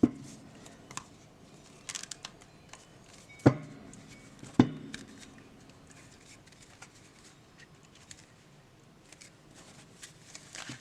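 A new gilt-edged tarot deck being cracked by hand: the cards bent and flexed to break apart edges that the gilding has stuck together, with light card rustling and clicking. A sharp knock comes at the very start and two more about three and a half and four and a half seconds in.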